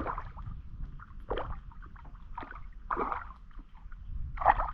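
A brook trout splashing in the water beside a small boat as it is landed: about five short, irregular splashes and sloshes, the loudest near the end, over a steady low rumble.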